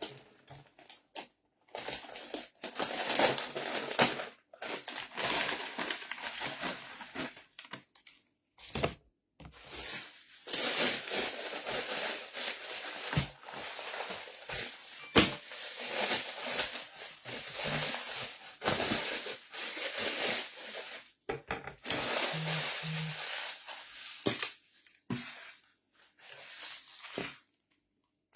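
Close-up crinkling and crunching, as in eating and handling food packaging for a mukbang, in stretches of a few seconds broken by short pauses, with a few sharp clicks.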